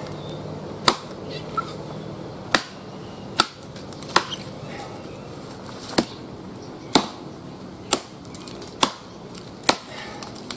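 A bolo machete chopping into a fallen tree trunk: about ten sharp blows, roughly one a second, with one lighter blow between the first two.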